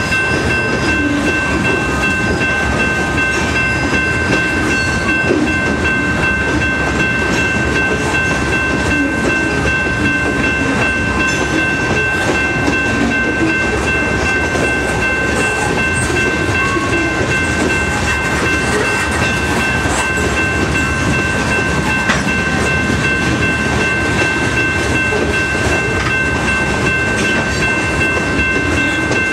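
Freight train of covered hopper cars rolling past at a grade crossing: a steady rumble and clatter of wheels on the rails. A steady high-pitched tone runs over it.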